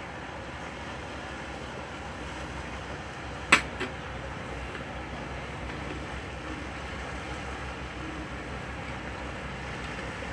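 Steady rumble and hiss of boat traffic, with a sharp knock about three and a half seconds in and a fainter one just after.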